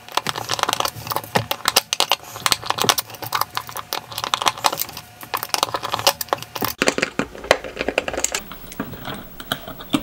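Dense, irregular run of small metallic clicks and taps as a small screwdriver backs out the screws of a hard drive's platter clamp and the tiny screws are handled on the metal hub.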